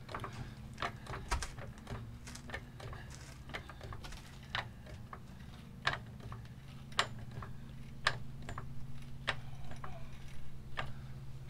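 Hydraulic floor jack being pumped by its handle to lift a truck: a sharp click with each stroke, irregular at first, then about one a second, over a steady low hum.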